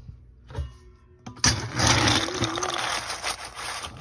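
Dry dog kibble rattling and pouring as a metal bowl is scooped through a bin of kibble, starting about a second and a half in and running on as a dense, continuous rattle.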